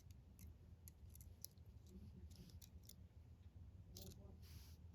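Faint scattered clicks and light scrapes of a metal lock pick probing the pins inside a brass Master Lock 140 padlock, with a short scrape about four seconds in.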